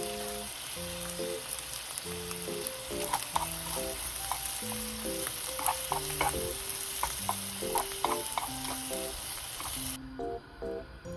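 Food sizzling in a frying pan while a utensil scrapes and taps against the pan as it is stirred. The sizzling cuts off suddenly near the end.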